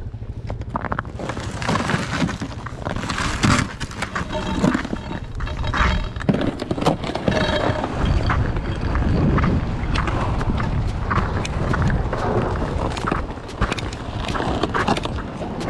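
A vehicle travelling over rough lake ice: a steady low rumble with irregular knocks and rattles throughout, and wind buffeting the microphone.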